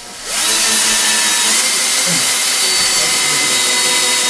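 Cordless drill spinning up about a third of a second in, then running at a steady speed with a constant whine, its bit pressed into the wooden roof framing.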